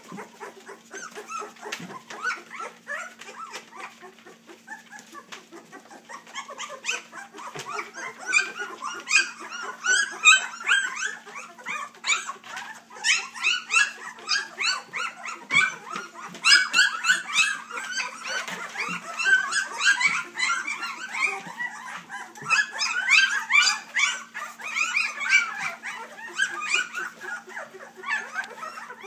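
A litter of three-week-old Labrador puppies whining and yipping, many short high calls overlapping, getting louder and busier after several seconds. A steady low hum runs underneath.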